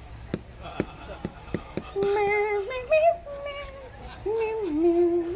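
A person singing a lullaby in a few slow, held notes, after several light taps in the first couple of seconds.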